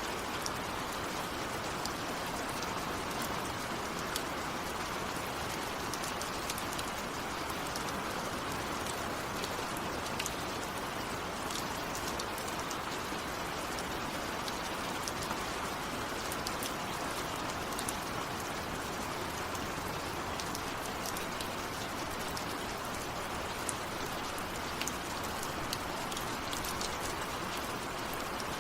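Steady heavy rain, with a constant hiss and many individual drops ticking sharply on a hard surface. No thunder sounds.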